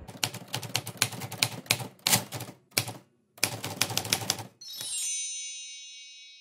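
Typewriter sound effect: rapid key clacks for about four and a half seconds, with a brief pause near the middle, then a bell-like ding that rings and slowly fades.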